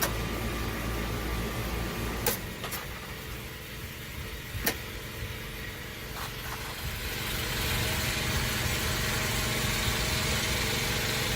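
Champion 8750-watt inverter generator's gasoline engine running steadily under load, powering house circuits through a transfer switch. A few sharp clicks come in the first half, and the hum grows somewhat louder about two-thirds of the way through.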